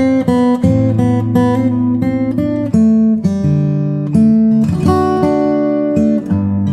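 Background music: an acoustic guitar picking a melody over bass notes.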